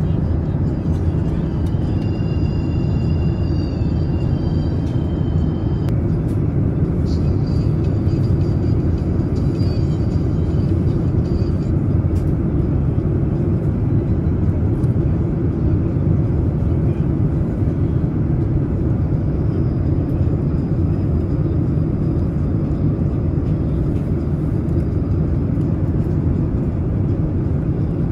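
Steady low drone of a Boeing 787 cabin in flight: engine and airflow noise at a constant level, with faint high thin tones over it during the first several seconds.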